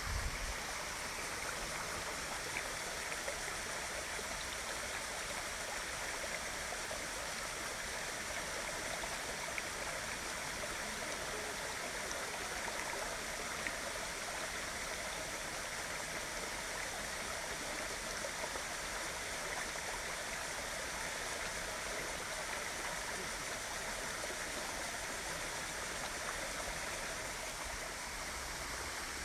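Waterfall water rushing and splashing, a steady even noise with no change in it.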